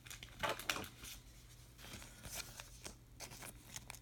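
Light rustling and handling noises of a cardboard trading card moved about in the hands: a few brief rustles, the clearest about half a second in, then fainter ones.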